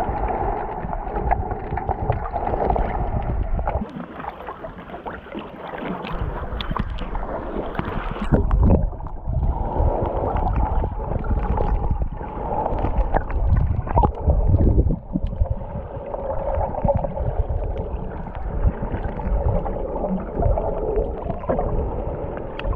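Muffled underwater sound picked up by a camera held below the surface while snorkelling: water swirling and gurgling, with irregular low rumbles.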